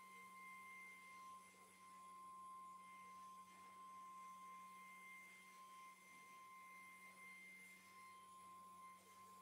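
Faint, steady high whine of a CNC router's 3.5 kW spindle running as a V-bit engraves MDF, over a low steady hum.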